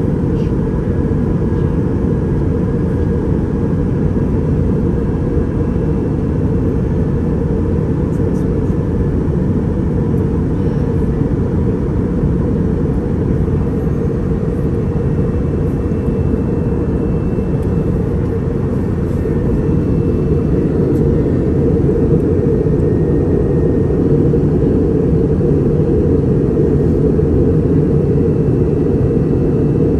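Steady low rumble of an airliner cabin in flight: engine and airflow noise heard from inside the passenger cabin.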